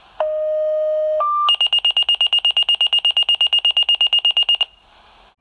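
Electronic alarm tones: a steady low tone for about a second, a brief higher tone, then rapid high-pitched beeping for about three seconds that cuts off suddenly.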